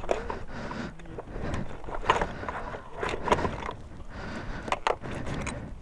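Handling noise from a Suzuki GSR 750's removed seat and under-seat compartment: several sharp clicks and knocks of plastic and metal parts being handled, over a steady low rumble.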